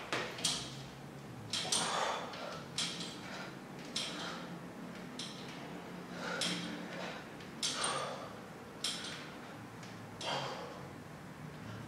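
A man breathing hard during a set of pull-ups, one short forceful exhale with each rep, about ten in all, a little over a second apart.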